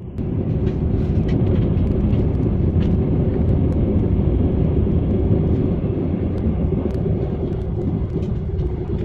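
Steady low rumble of a high-speed train running at speed, heard from inside the passenger carriage. A faint steady hum sits in it, with faint scattered ticks.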